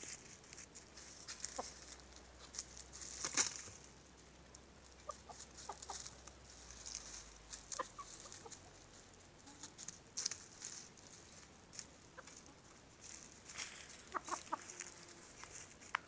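Chickens foraging in dry leaves: quiet rustling, scratching and pecking, with a few short, soft clucks, a small cluster of them near the end.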